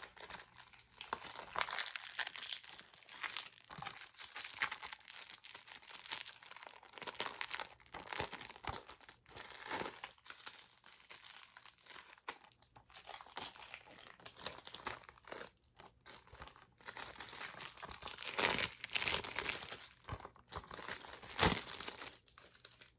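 Crinkly plastic wrap being torn and crumpled by hand off a Blu-ray case: continuous crinkling with sharp crackles.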